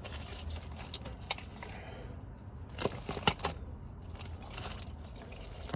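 A few sharp light clicks and taps, spaced irregularly over a low steady hum, from hand tools and the drain plug being handled under the car.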